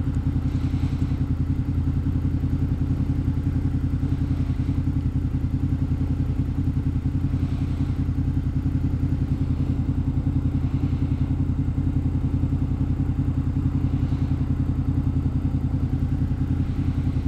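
Honda Interceptor VTEC's V4 engine running at a steady, even note, with no change in revs.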